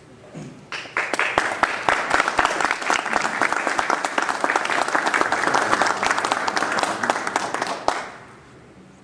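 Audience applauding. The clapping starts about a second in, runs for about seven seconds, and stops fairly suddenly near the end.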